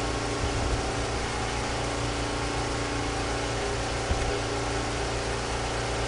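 Steady low electrical or mechanical hum with a faint hiss: the background noise of the recording setup. A single faint click about four seconds in.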